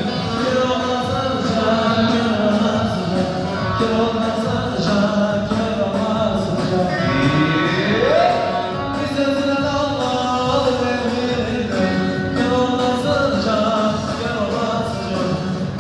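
Halay dance music with a sung vocal line over instruments, playing steadily; a rising slide in pitch comes about eight seconds in.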